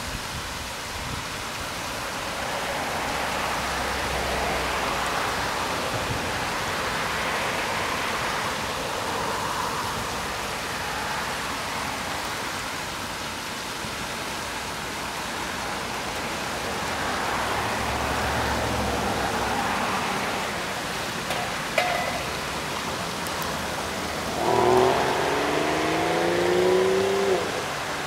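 Steady splashing of a pond's fountain jets, with the sound of cars passing on a road swelling and fading behind it. Near the end a louder vehicle engine passes, its pitch climbing before it cuts away.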